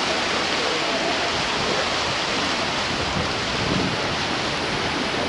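Steady rush of wind over the microphone and water along a moving cruise boat, an even noise with no breaks.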